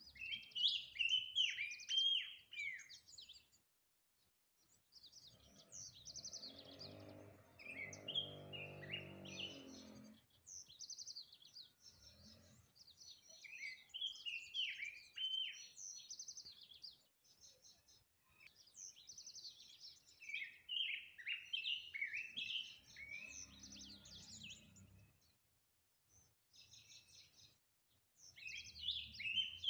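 A yellow-and-black songbird singing: warbled phrases of quick gliding whistles, repeated every few seconds with short pauses between them. A low droning sound runs underneath twice, for a few seconds each time.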